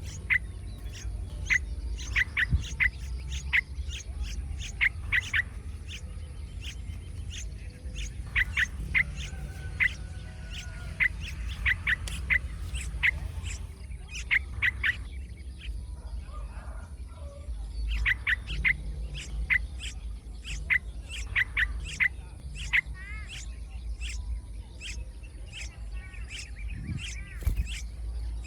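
Small songbird chirping: short, sharp chirps in quick runs of several a second with brief pauses, typical of a hungry chick begging to be fed. A steady low rumble sits underneath.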